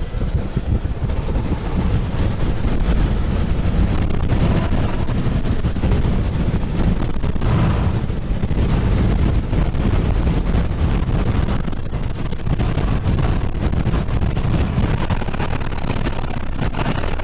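Gusty wind buffeting the microphone: a rough, low rumble that swells and eases in gusts.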